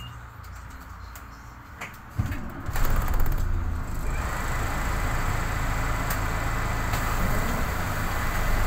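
Cabin sound of a MAN NL263 city bus at a stop: a low idle hum, then about two seconds in the doors close with a sudden burst of clattering and clicks. The engine then picks up as the bus pulls away, with a steady high whine over the running noise.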